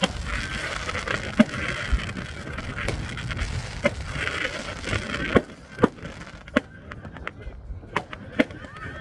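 New Year's Eve fireworks going off across the city: a dense crackling din with many sharp bangs, thinning out about five seconds in to scattered single bangs.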